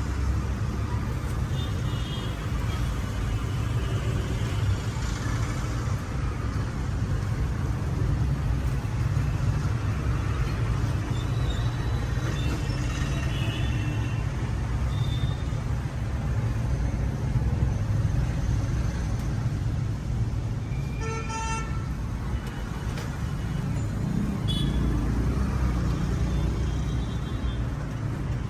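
Street traffic: a steady low rumble of passing vehicles, with horns tooting several times, one loud horn about three-quarters of the way in.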